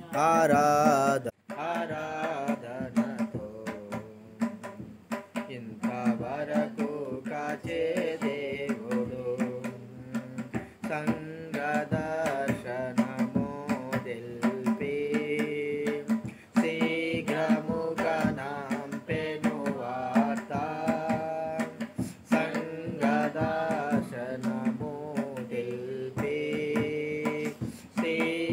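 Telugu Christian hymn of praise, sung with instrumental accompaniment. The sound cuts out sharply for a moment about a second in.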